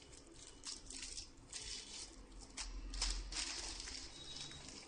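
Plastic packaging crinkling and rustling in irregular bursts as bagged components are handled, loudest about three seconds in.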